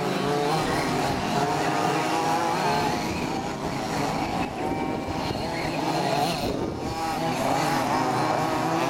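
Several large-scale petrol RC Baja buggies' small two-stroke engines buzzing at once. Their pitches rise and fall and overlap as the cars speed up and slow down through the track.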